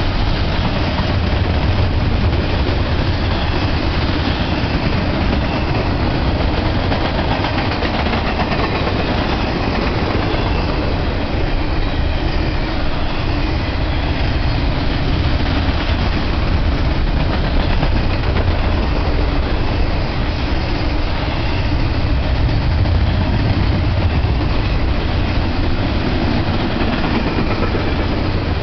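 Double-stack intermodal freight train's well cars rolling past: a steady, loud rumble of steel wheels on rail.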